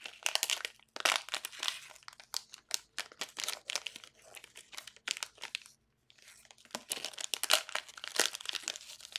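Plastic wrapper of a basketball card pack crinkling and tearing as it is ripped open by hand. The crackling comes in irregular runs, with a short pause about six seconds in.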